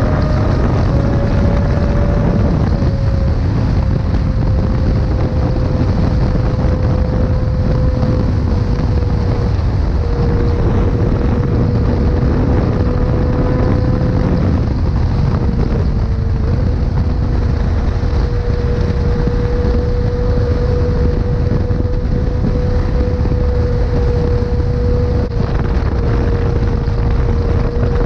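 Sport motorcycle engine running at a steady high rpm while riding, with heavy wind rush on the microphone. The engine note dips slightly a couple of times.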